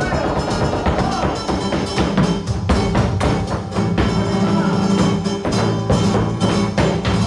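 Flamenco guitar playing with a flamenco dancer's footwork: fast runs of sharp heel-and-toe strikes on a wooden dance board, thickest about two to four seconds in.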